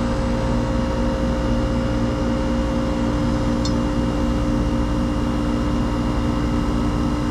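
Air conditioner outdoor condensing unit running steadily: a constant compressor hum with the condenser fan, several even humming tones over a low rumble.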